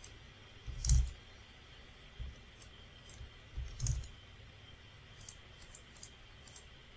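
Computer mouse clicking a dozen or so times at irregular intervals, with two louder dull thumps about one and four seconds in.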